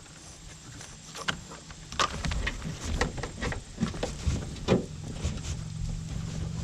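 Irregular small clicks, scrapes and rustles of hands feeding wires through the rubber wiring boot between a car door and the body.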